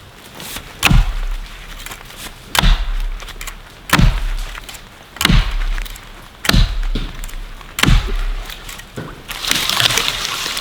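Axe chopping into a small tree or sapling: six solid strikes about 1.3 s apart, followed near the end by a rustle of branches as it comes down.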